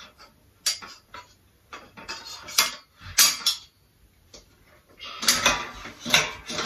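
Steel parts of an IKEA Råskog trolley clinking and knocking against each other as the frame and basket are fitted together by hand: a string of short metallic knocks, with a closer run of them about five seconds in.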